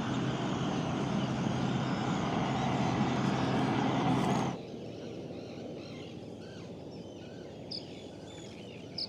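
A steady loud rushing noise that cuts off abruptly a little under halfway through. After it, a quieter background full of many short chirping calls of terns from a nesting colony, with a couple of sharper, louder calls near the end.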